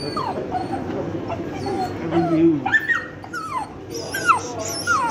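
Chorkie (Chihuahua–Yorkshire terrier cross) whining in a string of short, high calls that rise and fall in pitch: excited greeting whines.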